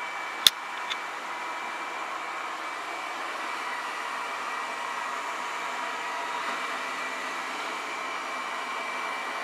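Ecovacs Deebot T9+ robot vacuum running a cleaning pass, a steady whir of its suction fan and brushes with a faint whine. There is one sharp click about half a second in.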